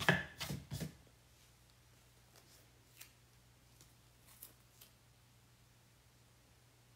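A plastic chalk transfer sheet being handled: a quick run of sharp, crinkly clicks in the first second, then a few faint taps, over a low steady hum.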